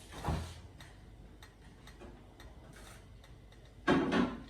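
Faint, irregular ticking and popping from canola oil heating in a saucepan. Two louder short noises come just after the start and near the end.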